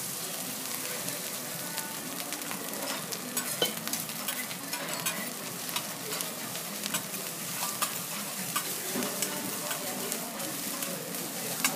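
Rice sizzling in garlic oil on a teppanyaki steel griddle, steady throughout. Metal spatulas scrape and click on the hot plate as the rice is stirred.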